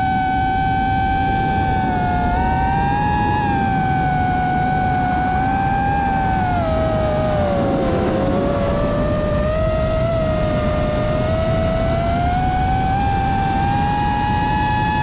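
Model-aircraft electric motors and propellers whining under throttle, the pitch rising and falling slowly as the throttle changes, with a dip about halfway through, over a steady rush of air.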